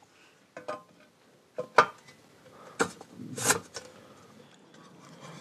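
Aluminium die-cast housing parts of a Kenwood Chef A701A food mixer being handled and fitted together: a handful of separate light clicks and knocks of hard casting against casting.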